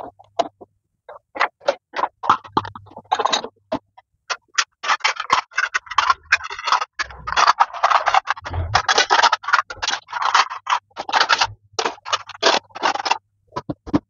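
Plates and dishes clattering and clinking as they are lifted off one dish rack and stacked into another, in a rapid run of knocks that is sparse at first and busiest from about five seconds in until near the end.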